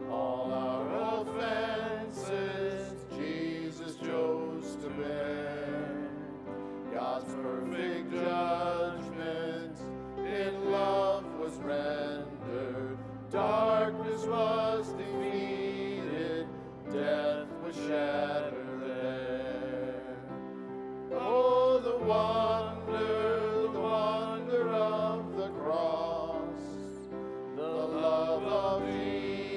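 Contemporary Christian worship song sung with instrumental accompaniment: a verse of held, slow sung phrases over a steady low backing, moving into the chorus near the end.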